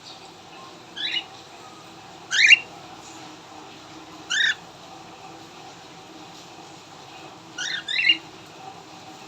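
Cockatiels giving short, sharp chirping calls, five in all, spaced one to three seconds apart, the last two close together.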